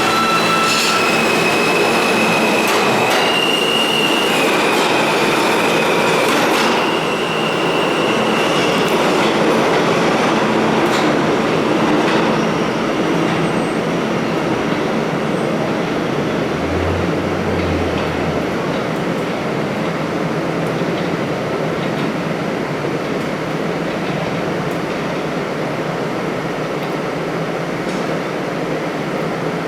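R160 New York City subway train running through the station: a steady rumble of wheels on rail with high, level whining tones that jump in pitch several times over the first nine seconds. After that only the rolling noise remains, getting gradually quieter.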